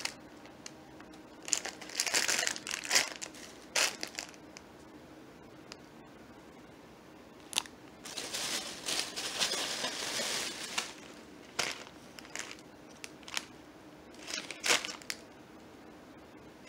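Plastic shopping bag and plastic-packaged items crinkling in irregular bursts, with pauses between, as they are handled.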